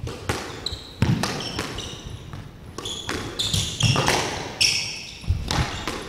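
Squash rally: the ball cracks off rackets and walls in a quick irregular series of sharp hits, with short high squeaks of court shoes on the wooden floor between them.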